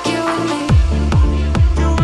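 Electronic dance music from a DJ set. A deep kick drum comes in about two-thirds of a second in and then thumps steadily, a little over twice a second, under sustained synth tones.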